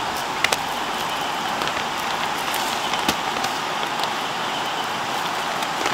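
Steady rushing of river water, with a few scattered faint clicks.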